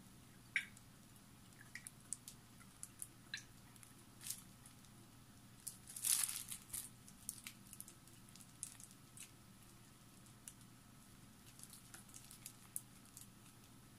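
Faint scattered scrapes and light clicks of a silicone spatula against a glass bowl as thick chocolate pudding mixture is poured and scraped through a stainless mesh strainer, with the loudest scrape about six seconds in.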